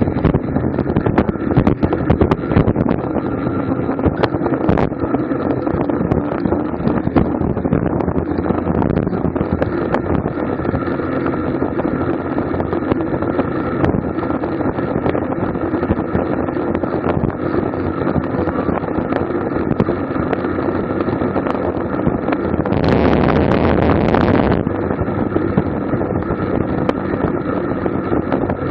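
Wind rushing over a bicycle-mounted camera's microphone at racing speed, mixed with steady tyre and drivetrain noise. About 23 seconds in, a louder rush of noise lasts for a second and a half.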